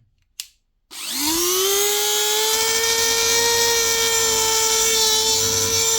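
High-speed rotary tool spinning up about a second in after a short click, then running at a steady high-pitched whine before stopping abruptly at the end, used to cut and roughen a steel barrel tube.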